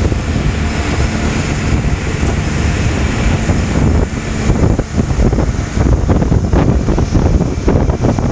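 Suzuki outboard motor running at speed as the boat heads out, with water rushing along the hull and wind buffeting the microphone, gustier in the second half.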